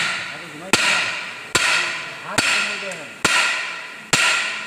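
Steady hammer blows on metal, about one a second, each ringing out and fading before the next strike.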